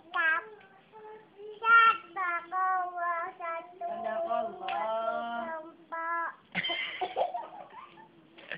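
A toddler's voice chanting a Quran recitation lesson (ngaji) in a sing-song melody: held, wavering notes broken by short pauses.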